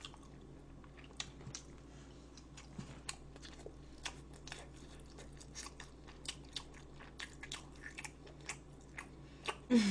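A person chewing food close to the microphone, with many faint, irregular wet clicks and small crunches.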